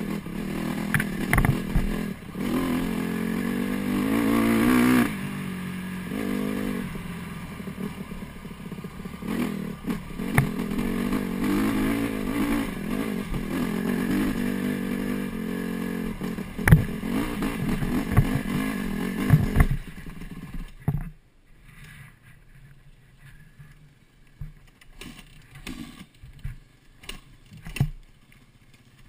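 Honda CRF150 dirt bike's single-cylinder four-stroke engine running under throttle on a bumpy dirt trail, revving up and easing off, with clattering knocks from the bike over rocks and ruts. About twenty seconds in the engine sound stops suddenly, leaving only scattered clicks and knocks.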